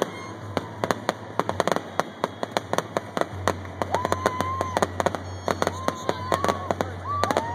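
Fireworks finale: a rapid barrage of aerial shell bursts, many sharp bangs and crackles overlapping at several a second. From about halfway through, long held high-pitched tones sound over the bangs.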